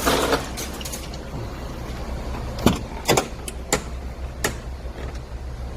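A steady low mechanical hum with a handful of sharp knocks and clicks: a short clattery burst at the start, then about five quick knocks in the middle.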